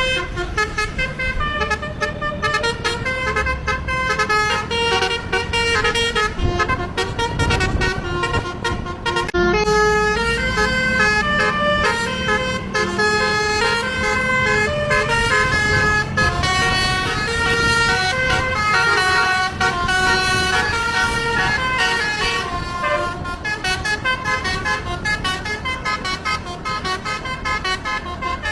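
Bus telolet horn, a set of multi-tone air horns, playing quick melodies of stepped notes again and again over a low engine rumble.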